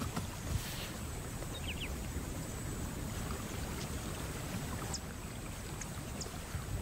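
Steady outdoor ambience of low rumble and hiss, like wind or moving water, with a few faint high chirps.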